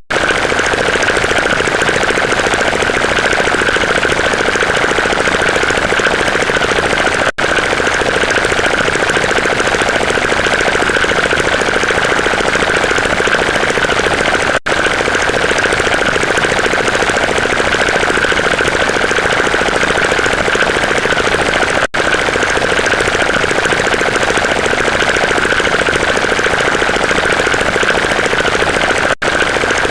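A loud, steady mechanical rattle played as a looped sound clip, cutting out for an instant about every seven seconds as the loop restarts.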